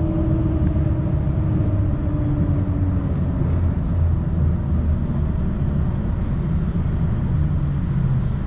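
Electric tram running along its track, heard from inside the car: a steady low rumble of wheels and running gear, with a steady motor tone that fades out about three seconds in.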